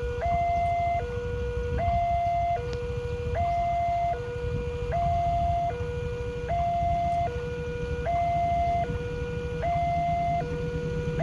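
Railway level-crossing warning alarm from the signal's loudspeaker: an electronic two-tone signal alternating steadily between a lower and a higher note, each held just under a second, sounding while the barrier is down for an approaching train. A steady low rumble runs underneath.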